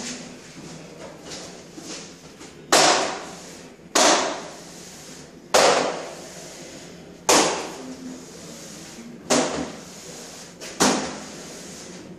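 A trowel spreading adhesive on the back of an FRP panel: six sharp scraping strokes about every one and a half seconds, each starting hard and trailing off.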